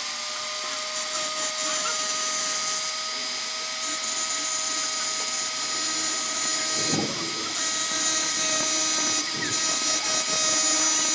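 Flexible-shaft rotary tool running at a steady speed with an even high whine, its engraving bit grinding against the work, with a couple of brief rougher surges partway through.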